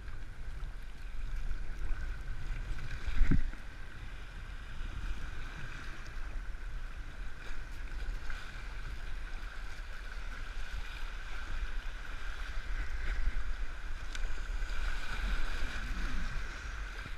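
Fast, flood-swollen river water rushing and splashing against and over the bow of a kayak as it is paddled through rapids, with low wind rumble on the microphone. A single loud thump about three seconds in.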